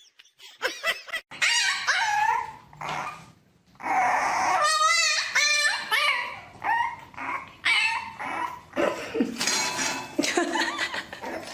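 French bulldog puppy whining and yapping in a string of high calls that bend up and down in pitch, some of them wavering.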